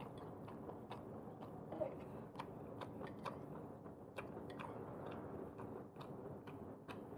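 Quiet chewing of chow mein close to the microphone, with scattered light clicks and taps at an irregular pace.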